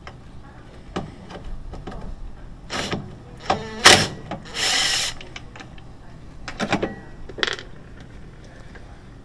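A tool working on the 10 mm bolts that hold the washer's drain pump housing: a series of clicks and short mechanical bursts, the loudest about four seconds in.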